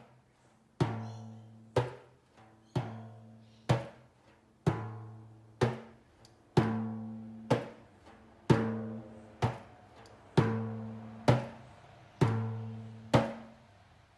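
Timbales struck about once a second in a steady pattern. A long stroke that rings out and fades alternates with a shorter stroke that dies away quickly.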